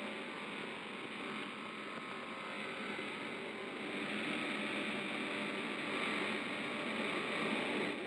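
Circular saw for cutting roller-shutter slats running with its blade spinning, a steady whirring noise that grows somewhat louder about halfway through.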